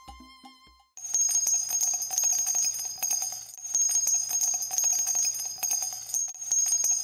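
Violin music fades out. About a second in, a rapid, jingling bell sound starts on the soundtrack. It keeps going with short dips about every three seconds, like a looped sound.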